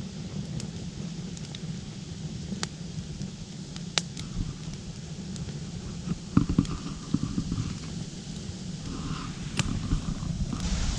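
Strong wind rumbling on the microphone, with scattered sharp clicks and a few knocks about six seconds in.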